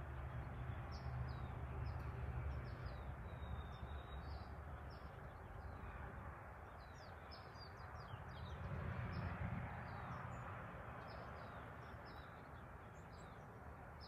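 Small birds chirping, many short high chirps scattered throughout, over a steady low background rumble.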